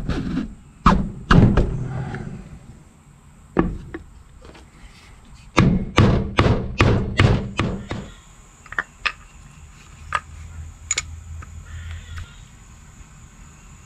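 Workshop knocks and thuds on jet-pump parts being worked on: a few heavy blows, then a quick run of about seven strikes, roughly three a second, then lighter scattered taps.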